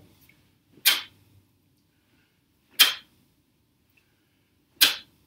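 Three short, sharp whooshes about two seconds apart, made by a martial artist throwing repeated taekwondo palm strikes.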